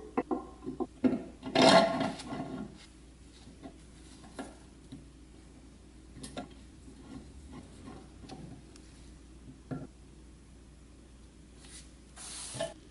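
Metal parts of a restored bench grinder's cast-iron bracket handled and fitted together: clinks and a scraping clatter in the first two and a half seconds, then scattered small clicks as a bolt is pushed through the pivot. Near the end a socket ratchet turning the bolt gives a brief burst of clicking.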